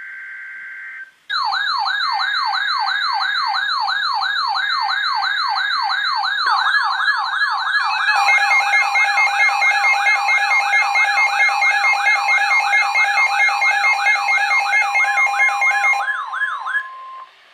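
Electronic yelp siren wailing up and down about three times a second, laid over the short buzzing data bursts of an emergency alert header. About eight seconds in, steady alert tones and a second wail join it, and all of it stops abruptly near the end.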